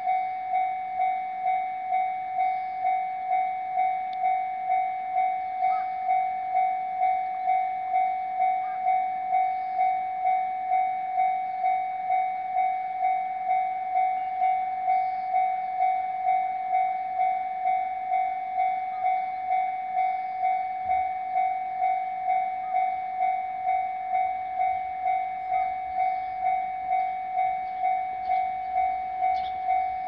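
Japanese level-crossing alarm on a crossing without barriers: the electronic warning sounder ringing its repeated 'kan-kan' tone about one and a half times a second. The alarm signals that a train is approaching.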